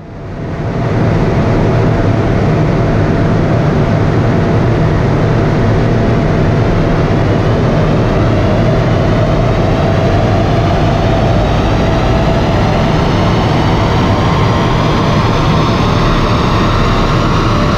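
Volkswagen Passat 2.0 TDI common-rail four-cylinder turbodiesel running hard on a rolling-road dyno, its driven wheels spinning the rollers. The noise builds over the first second, then holds loud and steady while a faint whine climbs slowly in pitch as the revs rise through the pull.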